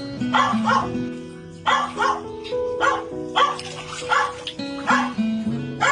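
A dog barking repeatedly, in short barks every half second to a second, over background music with long held notes.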